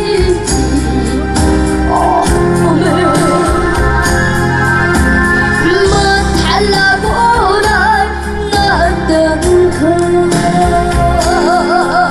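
A singer performing a slow trot song over instrumental accompaniment, with heavy vibrato on the held notes.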